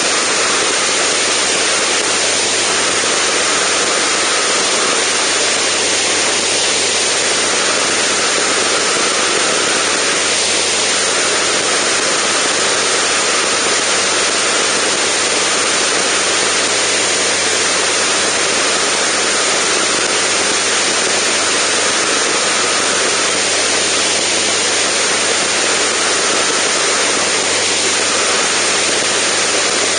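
Zenith STOL CH750 in steady cruise flight: a constant rush of wind over the externally mounted camera, with the low, even drone of the engine and propeller underneath.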